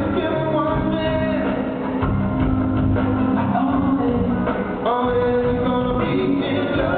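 Live rock band playing, with electric guitar, drums and a singer, recorded from the audience in an arena.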